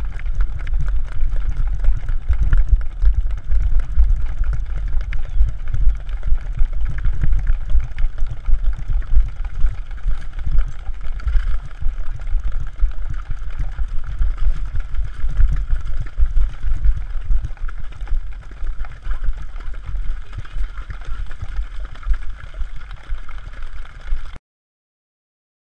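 Wind buffeting the microphone of a rider-mounted camera while Icelandic horses run through shallow water on wet sand, with hooves splashing: a dense low rumble with many sharp knocks. It cuts off suddenly about 24 seconds in.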